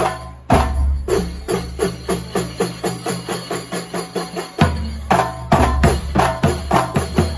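Kuntulan percussion ensemble of frame drums and drums playing a fast, driving rhythm at about four strokes a second over a heavy bass, loud through a big sound system, with hard accents just after the start and about four and a half seconds in.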